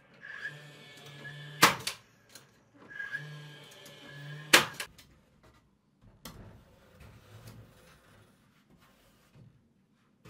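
Cordless DeWalt finish nailer firing two nails: each time its motor whirs up for about a second and a half, then the nail drives home with a sharp, loud snap. Softer knocks and handling noises follow.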